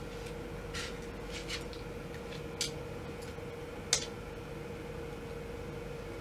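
Scattered soft taps and clicks of footsteps in 8-inch Pleaser Flamingo-800 platform heels on carpet, about five in all, the sharpest about four seconds in, over a steady low hum.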